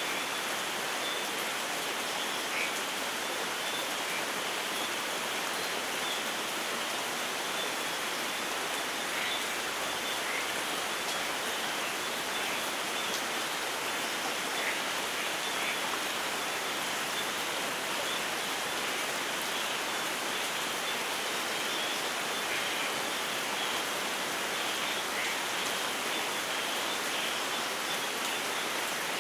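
Steady rain falling, an even hiss with scattered single drops standing out now and then; no thunder.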